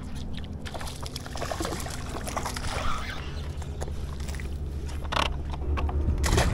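A hooked bass splashing and thrashing at the water's surface as it is reeled in through floating grass, with a couple of brief louder splashes near the end, over a steady low rumble.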